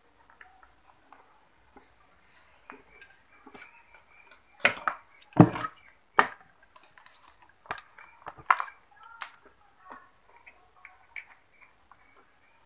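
Handling clatter on a wooden workbench: a series of knocks and clicks as an amplifier circuit board, its cables and a speaker box are moved about, loudest in a cluster of thuds about five seconds in.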